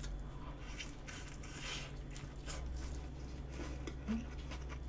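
Faint eating sounds: scattered small clicks and rustles of chewing and handling food, over a steady low hum.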